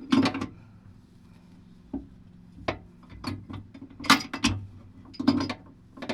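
Pipe wrench clanking and scraping against metal fittings while being worked on a tight part, a series of sharp metallic knocks about a second apart.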